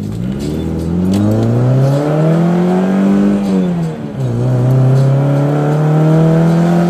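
Car engine accelerating, heard from inside the cabin: its pitch climbs steadily, falls away about four seconds in at a gear change, then pulls on steadily in the next gear.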